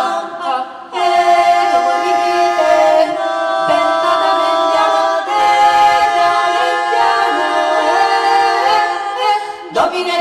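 Female a cappella vocal ensemble singing live, holding long notes in several-part harmony, with a brief break about a second in and another near the end.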